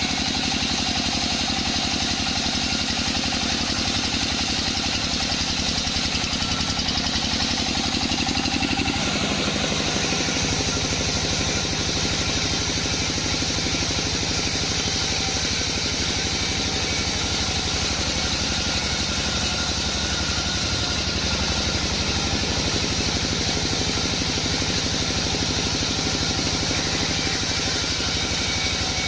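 Sawmill band saw machinery running with a steady engine-like drone. Its lower tone changes about nine seconds in, then it runs on evenly.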